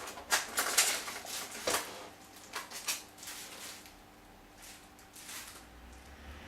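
Airsoft gun accessories and their plastic packaging being handled. There are several sharp clicks and rustles in the first two seconds, then fainter scattered rustling.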